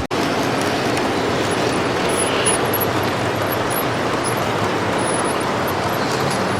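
Steady running noise of model trains on a display layout, with no clear rhythm or tone. The sound cuts out for an instant at the very start.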